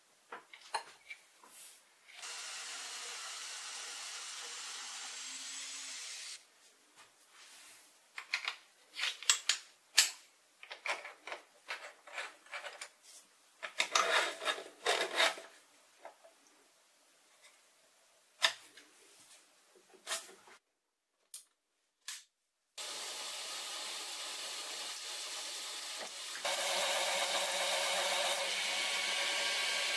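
Wrench and metal tooling clicking and clinking on the lathe's toolpost and cross-slide, with a few seconds of steady machine noise early on. After a brief silence, a shop vacuum on a chip-extraction hose runs steadily, getting louder near the end as the lathe starts running.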